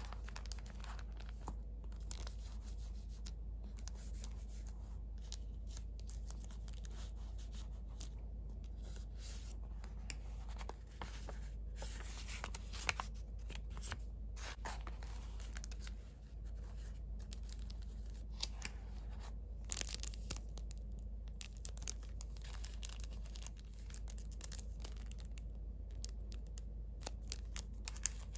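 Paper and thin plastic rustling and crinkling as hands handle a junk journal: cards slid out of paper pockets and a small clear plastic bag of embellishments picked up, with irregular soft rustles and a few sharper crackles.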